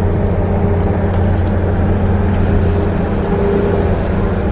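A bus engine running steadily as the bus drives along, a continuous low drone with road noise, heard from inside the cab.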